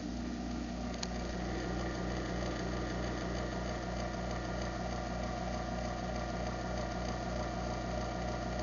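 Craftsman half-horsepower garage door opener running its opening cycle: a steady motor hum with a mechanical drone, and one faint click about a second in.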